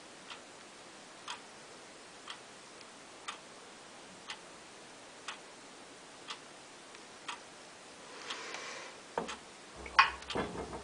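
A clock ticking steadily, one sharp tick each second with fainter ticks between. Near the end comes a short hiss, then a few louder knocks and clicks as the slip trailer and plate are handled.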